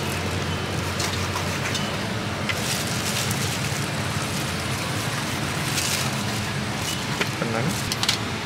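Steady street-stall background noise, a hiss with a low hum beneath it. There are a few light clicks near the end.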